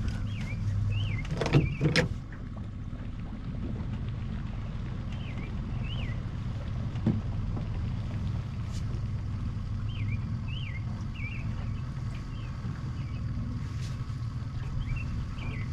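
Small outboard kicker motor on an aluminium fishing boat running steadily at trolling speed, a constant low hum. A few sharp knocks about a second and a half in, and short high chirps come and go several times.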